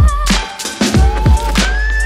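Background music with a steady beat: deep bass drum hits, sharp snare and hi-hat hits, and a gliding synth melody.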